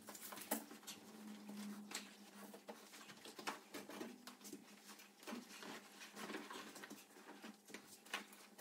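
Faint, irregular clicks, knocks and rustling of a person taking off a jacket and changing shoes at a shoe rack.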